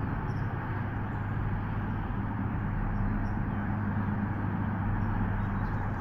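Steady ambient hum and hiss from an outdoor nest-camera microphone, with a constant low electrical hum under it and no clear bird calls.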